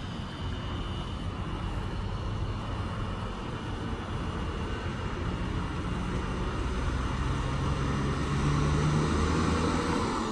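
Heavy road vehicle engine rumbling, growing gradually louder toward the end as it draws closer.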